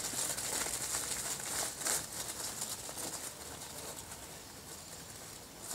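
Whippet puppies scampering and tussling on grass strewn with dry fallen leaves: rustling patter of paws and crackling scuffs, one louder scuff about two seconds in.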